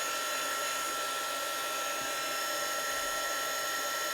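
A handheld electric drying tool blowing air at wet paint, running at a steady whine with a rush of air and several fixed high tones.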